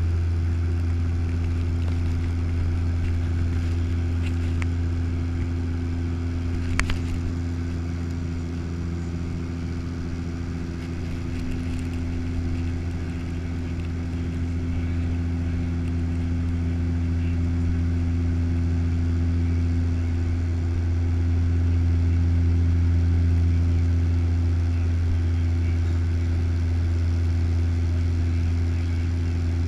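Turboprop airliner's propeller and engine droning steadily in the cabin, a deep hum with a few higher overtones that swells and eases slightly. A single sharp click about seven seconds in.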